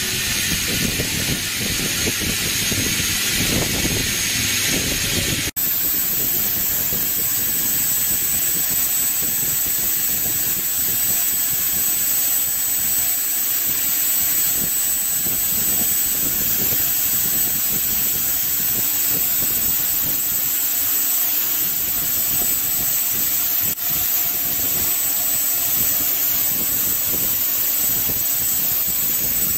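CNC milling machine with its spindle running at high speed, cutting metal: a steady, loud hiss and whine with a thin high tone held throughout. It breaks off for an instant about five seconds in and once more later.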